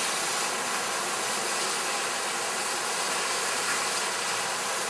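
Water pouring steadily over the curved concrete lip of a fountain weir into the shallow pool below: an even rushing noise.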